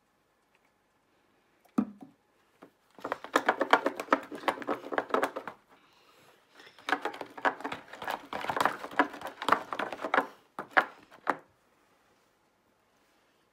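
Runny homemade glue slime being stirred and squished by hand, heard as rapid wet clicking in two stretches of a few seconds each, with a single knock just before. The batch has not firmed up into slime.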